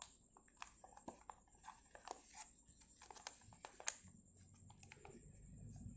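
Faint crinkling and crackling of origami paper being folded and creased by hand, a string of small irregular crisp clicks.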